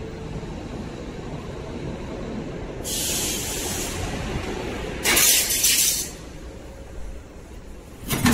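Punched sheet-metal sample plates being handled on a workbench: two scraping, clattering bursts of metal on metal, about a second each, the second louder, then a sharp knock near the end as a plate is set down. A steady low workshop rumble runs underneath.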